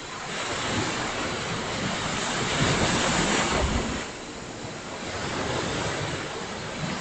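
Ocean surf: a wave breaking and rushing up the shore, swelling to its loudest a little past halfway and falling away sharply at about four seconds, then the next wash building again.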